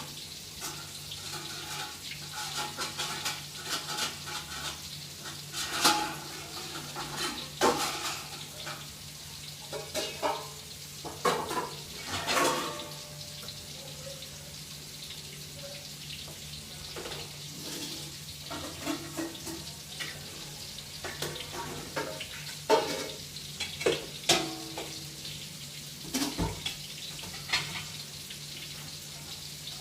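Kitchen work: scattered clinks and knocks of utensils against pots and dishes over a steady hiss and a low hum.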